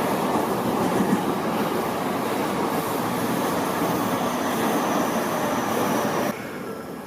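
Tobu Tojo Line electric commuter train running along the track, a loud steady rumble of wheels and running gear that cuts off suddenly about six seconds in.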